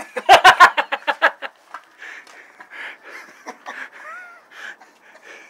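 An air bomb battery firework going off in a rapid string of loud bangs, about ten in just over a second, then scattered fainter cracks and pops.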